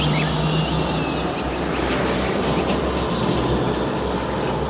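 Heavy tanker truck's diesel engine running with tyre and road noise as it drives past, steady throughout. A few bird chirps sound over it.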